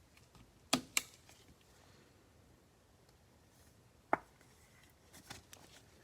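Trading cards and packs being handled on a table: two sharp clicks under a second in, another just past four seconds, and a few lighter taps about five seconds in, over faint room tone.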